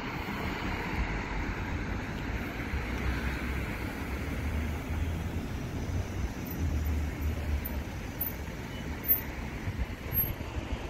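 Road traffic passing on a street: a steady wash of car and tyre noise, with a heavier low rumble through the middle and a brief knock near the end.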